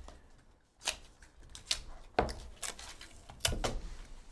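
Trading cards and their cardboard packaging being handled: about six short, sharp clicks and taps, the loudest a little past two seconds in.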